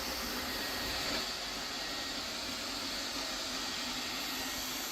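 OKP Life K2 robot vacuum cleaner running: a steady, even rushing noise from its suction fan and brushes, with a faint high steady whine.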